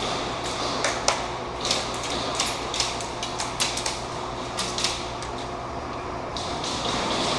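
Airsoft guns firing in scattered single shots and quick strings, sharp cracks and clicks echoing in an indoor arena, over a steady background hum.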